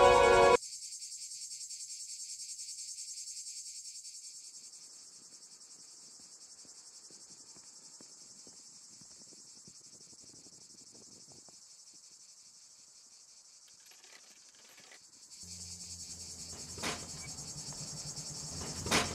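A steady, shrill chorus of insects with a fine rapid pulse. A music cue cuts off just after the start, a low hum joins about fifteen seconds in, and there is a sharp tap near the end.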